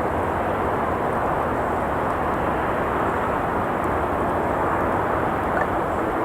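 Steady hiss and rumble of traffic on a nearby road, with a couple of faint crackles from the campfire.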